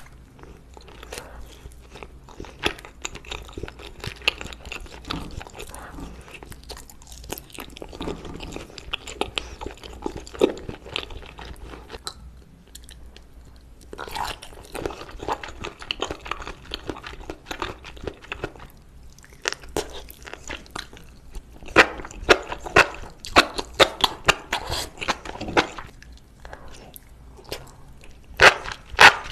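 A person eating durian fruit: a run of quick biting, chewing and lip-smacking mouth noises, with a few short breaks, loudest in the later part.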